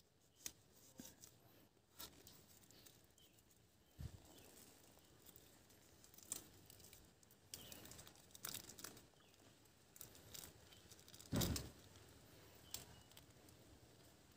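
Clear plastic grafting bag and tie crinkling and rustling as they are handled around a grafted water apple stem, with scattered small clicks. There is a sharp knock about four seconds in and a louder one about eleven seconds in.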